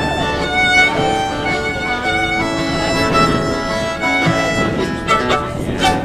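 Live acoustic band music led by a fiddle bowing a melody, with guitar accompaniment.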